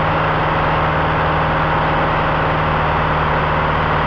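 Single-engine light airplane's piston engine and propeller droning steadily in flight, heard inside the cockpit, with a steady low hum under a wide roar of engine and air noise.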